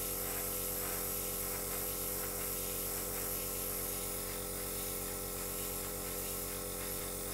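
An airbrush and its small air compressor running steadily, giving a buzzing hum and the hiss of air and paint spraying from the airbrush nozzle.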